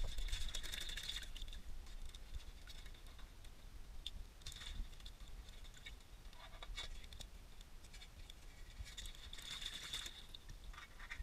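Faint wet crackling, scraping and patter of hands cleaning raw blue swimmer crabs in water in a stainless steel sink, pulling away shell and gills. The crackles come in small irregular clusters a few seconds apart.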